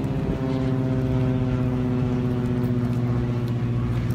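An engine running steadily: a low drone that holds one pitch.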